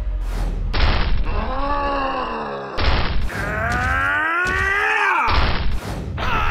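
A cartoon character's wordless, drawn-out groaning cries: two long ones, the first rising then falling about a second in, the second slowly rising in the middle. They come between sudden thuds and whooshes over a low rumble.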